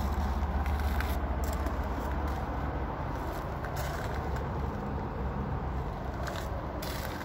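Steady low rumble of outdoor background noise, with a few light clicks and ticks scattered through it.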